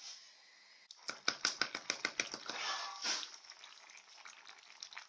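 Spoon clicking and scraping against a pan of spaghetti in tomato sauce as it is stirred: a quick run of clicks and taps starting about a second in, then softer scraping that eases off.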